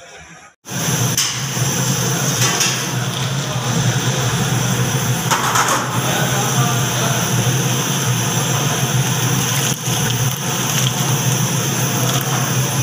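Gulab jamun dough balls deep-frying in a large kadai of hot oil: a steady sizzle with a loud steady low hum beneath it, starting suddenly about half a second in.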